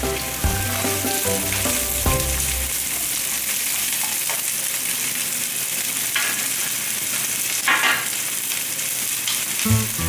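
Zucchini slices and diced onion sizzling in hot oil in a frying pan: a steady frying hiss that swells briefly twice past the middle.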